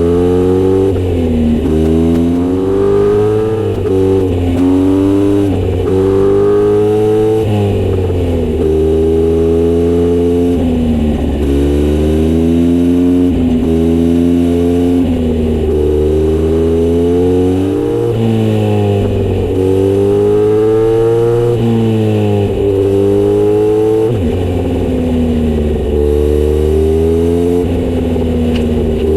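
Kawasaki Z900RS inline-four through a short aftermarket exhaust (Misty Kintaro short pipe with 70 mm L silencer), running loud. Its pitch climbs again and again, each climb lasting one to two seconds before dropping back.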